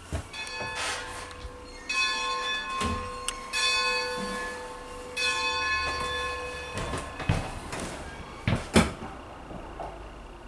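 Steam locomotive bell rung by hand, struck four times about a second and a half apart, each stroke ringing on and dying away. A few sharp metallic knocks follow near the end.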